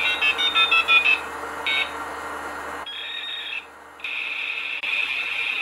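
Electronic tones: a quick run of short beeps at shifting pitches in the first second, then a steady high-pitched tone that drops out briefly and resumes.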